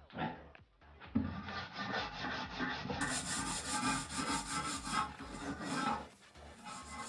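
Rough scraping and rubbing of a tool against a hard surface during bathroom floor-drain repair and waterproofing work, most intense from about a second in until about six seconds, over a background music beat.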